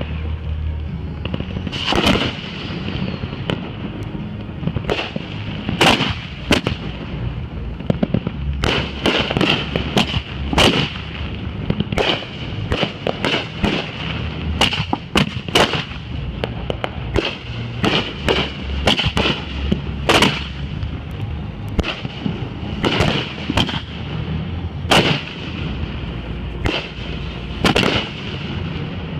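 Fireworks going off in quick succession: dozens of sharp bangs, spaced unevenly and at times several a second, over a steady low rumble.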